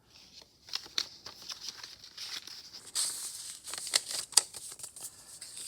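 Paper rustling and crinkling as the pages of a handmade paper journal, a small envelope and a card are handled, with sharper crackles and small clicks now and then.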